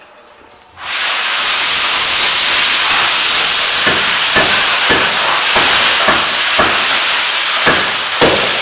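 A loud, steady hiss, like compressed air rushing out, switches on suddenly about a second in. From about the middle, a run of irregular knocks sounds over it.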